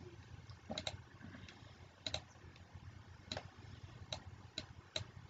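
A handful of sharp, irregularly spaced clicks, two of them in quick pairs, over a faint low hum.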